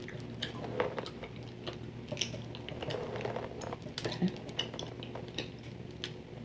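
Irregular light clicks and taps of a plastic comb being handled and drawn through a section of hair, picked up close to the microphone, over a low steady hum.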